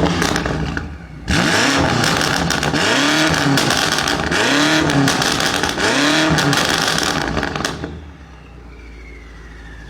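BMW M5 Competition's twin-turbo 4.4-litre V8 being revved in a quick series of blips, about one a second, each rising and falling in pitch. About eight seconds in it drops back to a quieter idle.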